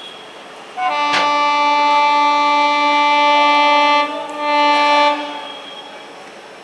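A MEMU electric multiple-unit train's horn sounding two blasts: a long steady blast of about three seconds, then a short one, as the train approaches.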